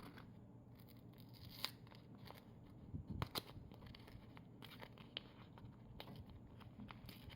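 Faint scattered clicks and crinkles as the corner-guard pieces and their packaging are handled, over a low steady hum.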